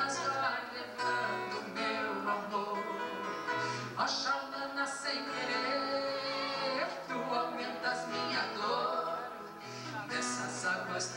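A man and a woman singing together live, their voices sliding up and down through high notes.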